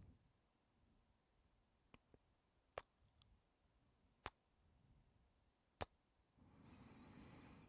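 Soft kisses: four short, sharp lip smacks about a second or so apart, followed by a breath near the end.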